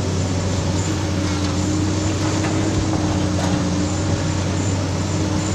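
Komatsu PC200 hydraulic excavator's diesel engine running steadily under load, a low even hum, as the machine swings a loaded bucket of soil over to a dump truck.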